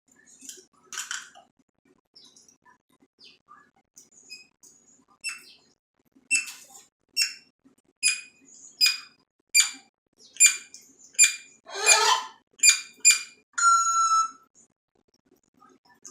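Pet parrot calling: scattered soft chirps, then a run of loud, sharp squawks repeated about once or twice a second for several seconds, ending in a short held whistle.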